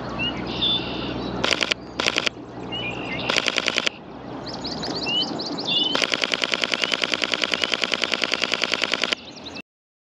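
Sony A7 IV camera shutter firing in rapid bursts of about ten clicks a second: two short bursts, a slightly longer one, then a long run of about three seconds near the end. Small birds chirp between the bursts.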